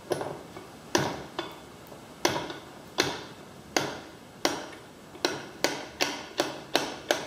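Manual score-and-snap tile cutter working along a mesh-backed sheet of thick glass mosaic tiles: a series of sharp, ringing glass clicks, one tile after another. The clicks come about once a second at first and faster, nearly three a second, near the end.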